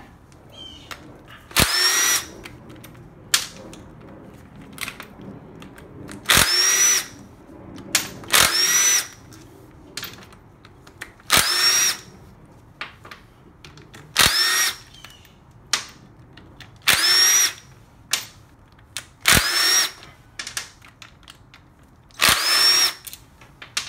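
Cordless power driver with an 8 mm socket spinning out engine-cover bolts on a Kawasaki Ninja 250 in about eight short runs. Each run starts with a click and carries a motor whine that rises in pitch, and there are small clicks between runs.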